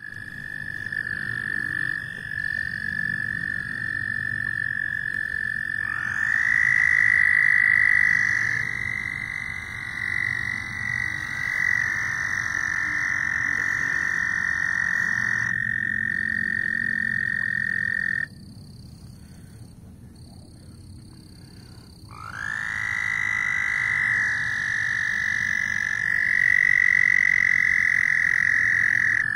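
Frogs calling in long, steady, high-pitched calls that overlap one another. The calling breaks off about 18 seconds in and starts again about 4 seconds later.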